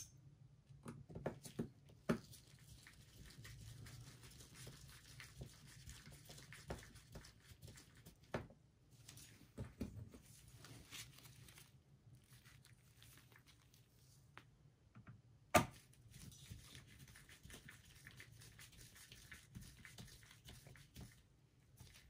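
Faint scattered clicks and taps of a Phillips screwdriver and small screws against the bottom cover of a Dell Latitude E6330 laptop as the cover screws are put back and driven in, with one sharper knock about fifteen seconds in.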